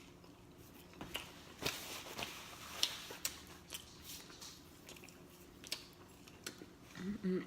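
Close-miked chewing of pizza, with scattered wet mouth clicks and lip smacks. A voice starts just before the end.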